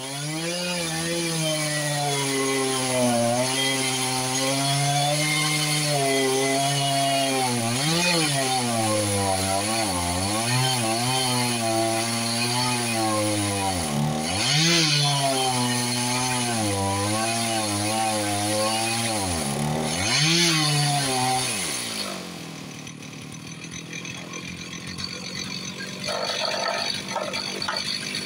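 A 59cc Stihl chainsaw on an Alaskan chainsaw mill, run at full throttle ripping a cedar log lengthwise. The engine bogs down in pitch a few times where the log rocks and pinches the bar, then recovers. About 22 seconds in the saw drops away, and lighter knocking follows as a wooden wedge is set in the kerf.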